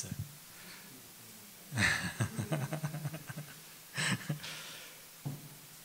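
A man laughing into a handheld microphone: a burst of rapid chuckles about two seconds in, then a shorter laugh about two seconds later.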